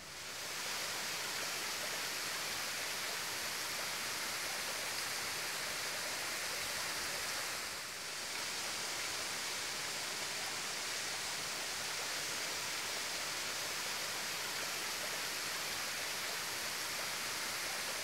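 Waterfall spilling down a rock face into a pool: a steady rush of falling water, with a brief dip about halfway through.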